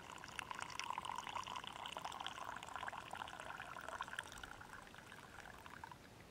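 Liquid poured in a thin stream from a small blackened metal pot into a cup, a faint trickle that rises in pitch as the cup fills. It stops near the end.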